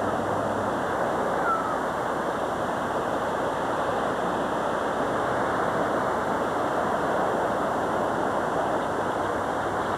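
Ocean surf on a beach: a steady, even rush of breaking waves.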